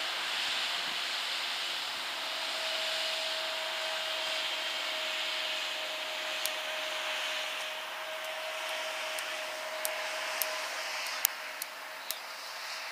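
Steady rushing hiss, with a faint steady tone through the middle. From about six and a half seconds in, scattered sharp taps of soccer balls being struck by players' feet in a juggling drill, irregular and a few a second at most.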